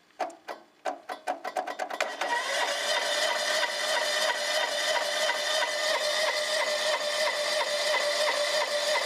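Wheel Horse 257H garden tractor engine turned over by the starter on a substitute ignition switch: the cranking strokes come faster and faster over about two seconds until the engine catches and runs steadily.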